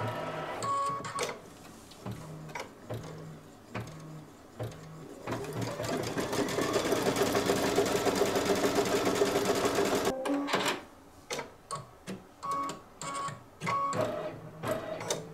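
Brother Luminaire embroidery machine stitching the placement line for the batting, the first step of the design. It runs steadily at a fast stitch rate for about five seconds in the middle, then stops abruptly, with shorter separate sounds before and after.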